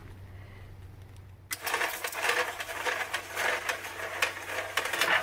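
Mud Mixer portable concrete mixer starting up about a second and a half in and churning a bag of concrete mix, a dense gritty rattle full of quick clicks.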